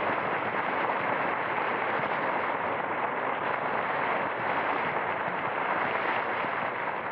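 Studio audience applauding the host's introduction, a steady patter of clapping that eases off near the end.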